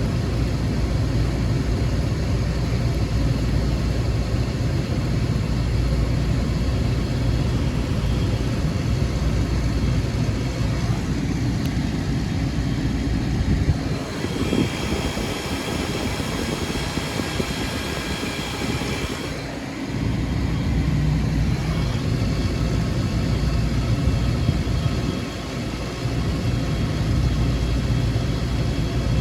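Newly installed walk-in cooler condensing unit running steadily: compressor hum and condenser fan, freshly started and pulling down a warm box as its head pressure builds. For about five seconds midway the low hum drops back and a higher hiss comes up, then the hum returns.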